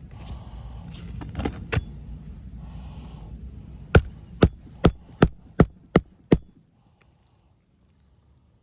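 A hammer driving a nail into a roof shingle: seven sharp, evenly spaced strikes, about two to three a second, over a low steady rumble that stops just after the last strike.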